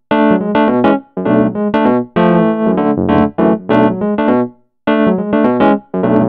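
Korg Triton LE synthesizer playing its 'Tremolo Wurly' preset, a Wurlitzer-style electric piano with tremolo, in short chord phrases about a second long with brief gaps between them.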